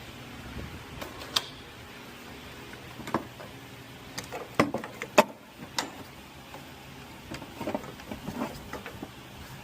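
Scattered sharp clicks and knocks of hands and tools working on heater hose fittings, the loudest about five seconds in and a smaller cluster near the end, over a steady low hum.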